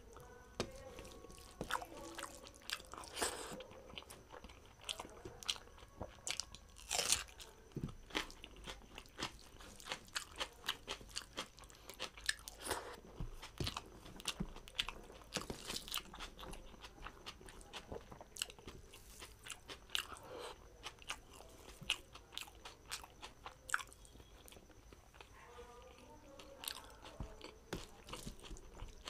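A man eating by hand, chewing and crunching his food, with many small sharp mouth clicks and crunches coming irregularly throughout.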